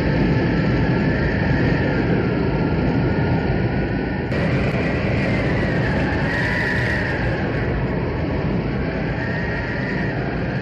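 Tornado wind sound effect: a steady howling roar with a high whistle that wavers up and down, growing hissier about four seconds in.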